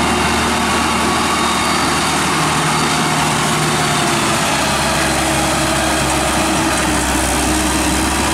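Kubota diesel engine of a crawler-tracked rotary tiller running steadily under load as the machine drives and tills through paddy mud. A deeper low hum grows stronger about halfway through.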